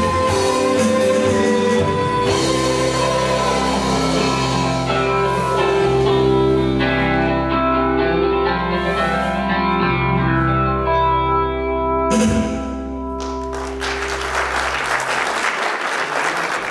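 A live band of electric guitars, bass, keyboard and drums plays the closing bars of a song and holds a final chord that rings out. Near the end the audience breaks into applause.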